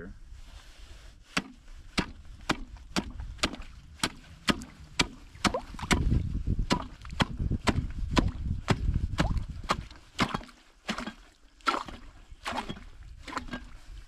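Steel ice chisel (spud bar) chopping a hole in clear lake ice about six inches thick, striking about twice a second. From about six to ten seconds in the blows come heavier with a low rumble. The strikes then grow sparse toward the end.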